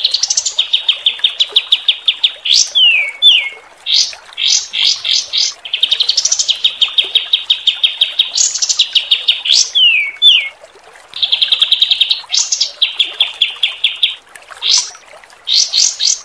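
Songbird masteran recording of fast trills of evenly repeated sharp notes, about eight to ten a second, in runs of one to two seconds, broken by quick falling whistled sweeps, over a faint hiss of running water.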